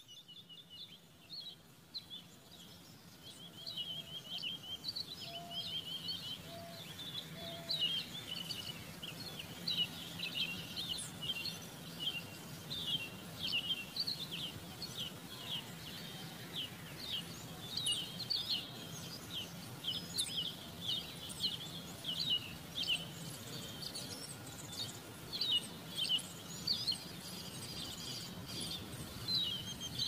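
Many small birds chirping and twittering, quick high chirps overlapping all through and growing busier after the first few seconds. Four short, low notes sound a few seconds in.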